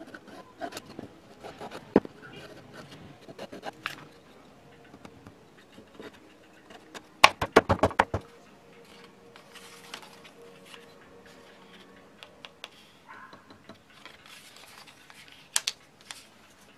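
Wooden board and frame pieces being handled on a workbench: scattered light knocks, clicks and scrapes. About seven seconds in comes a quick run of sharp knocks, the loudest part, as the board is pressed into its wooden holding frame.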